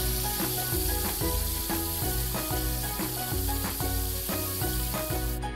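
Aerosol spray-paint can spraying with a steady hiss that cuts off near the end, over background music with a steady beat.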